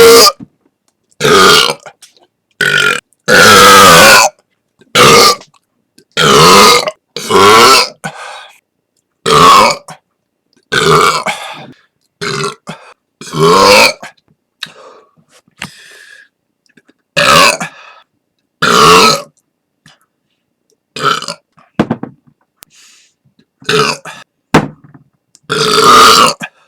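Loud human belches, a dozen or more in a row, each lasting up to about a second, with short silent gaps between them. The longest comes about three seconds in, and several fainter, shorter burps fall among the loud ones.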